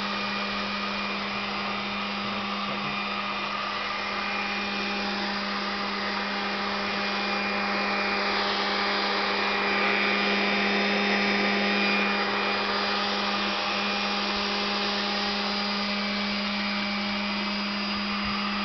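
Electric blower motor, shop-vac style, running steadily as it draws gas through a homemade gasifier. A constant hum with a hissing rush over it, swelling slightly about halfway through.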